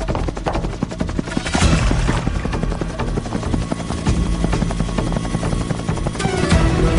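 Helicopter rotor chopping steadily, a dubbed sound effect.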